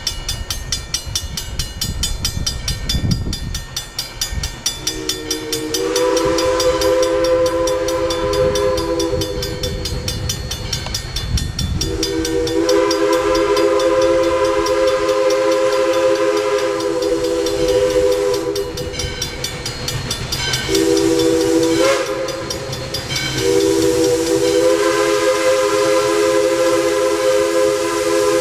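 Chime steam whistle of steam locomotive No. 40 blowing a three-note chord in the grade-crossing signal: two long blasts, a short one, and a long one still sounding at the end. This is the warning for the road crossing ahead. Before the whistle, the locomotive and its train are heard running toward the crossing.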